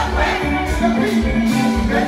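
Live Haitian kompa band music with a steady bass line and a busy percussion beat.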